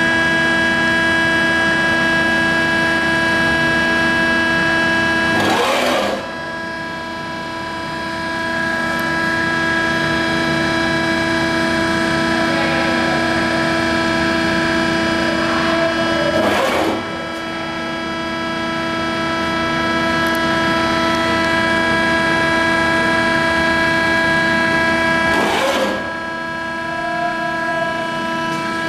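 Cincinnati hydraulic press brake's electric motor and hydraulic pump running with a steady, many-toned hum, broken three times by a brief hissing rush about ten seconds apart.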